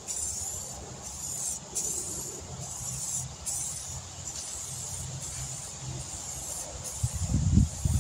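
Aerosol spray-paint can hissing as gloss black paint goes onto a truck fender, in a high hiss that pulses about once a second. A few low thumps come close to the microphone near the end.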